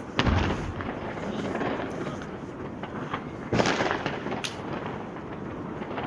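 Fireworks going off in the street: a loud, deep bang just after the start and another about three seconds later, with scattered smaller firecracker pops and crackles between them.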